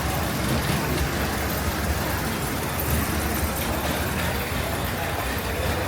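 Boat engine running with a steady low rumble, heard over the wash of water and outdoor noise.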